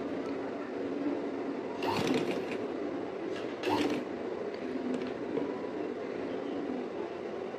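Sewing machine running, stitching down folded fabric points. Two brief louder noises come about two seconds and just under four seconds in.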